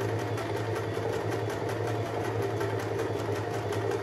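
AEG NM 1714 domestic sewing machine running at a steady speed while sewing a row of stretch stitch. Its electric motor hums under a rapid, even clatter of needle strokes.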